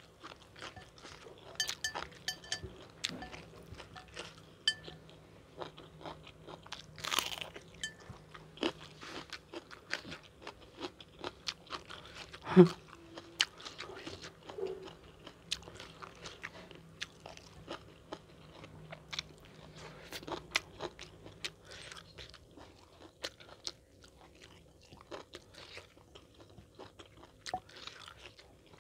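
Close-miked eating of fried chicken with raw-bean chili sambal: irregular crunching, biting and chewing clicks. There is a short hiss about seven seconds in and a louder short sound about twelve seconds in.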